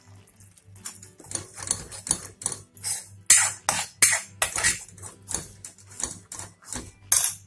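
Steel spoon scraping and clinking against a metal kadai while stirring a thick masala gravy, in quick irregular strokes that start about a second in, with a few louder clanks.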